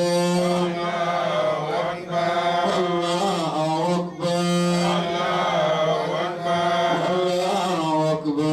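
A man's voice chanting melodically into a microphone. Long held notes bend up and down, in phrases broken by a short breath about every two seconds.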